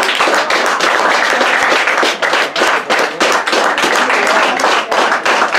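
Spectators applauding, many hands clapping steadily, greeting a substitution as one player leaves the pitch and another comes on.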